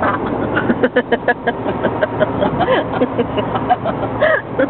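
Steady engine and road noise inside a moving car's cabin, with voices talking over it.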